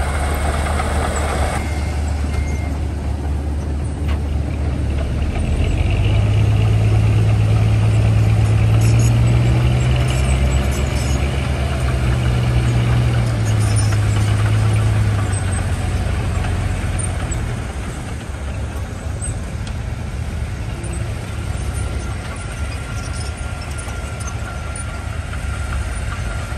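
Diesel engine of a Mitsubishi BD2G crawler bulldozer running. It grows louder about six seconds in as it works harder, then eases back about ten seconds later.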